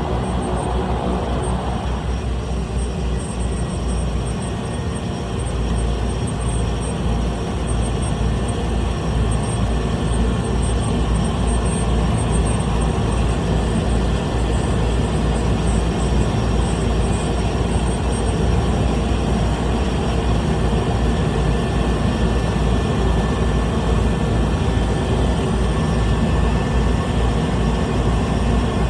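Small plane's propeller engine running steadily, heard from inside the cabin; it grows a little louder a few seconds in.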